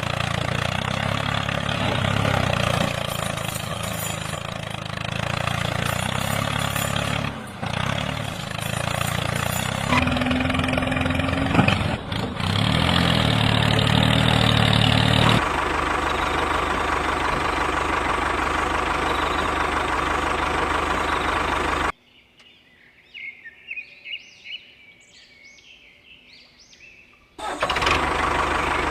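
Engine running steadily in several abruptly cut stretches. A quieter gap about three-quarters through holds birds chirping before the engine sound returns.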